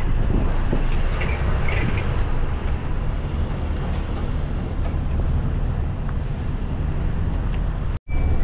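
Cabin noise inside a passenger van on the move: a steady engine and tyre rumble with light rattles. It breaks off suddenly near the end.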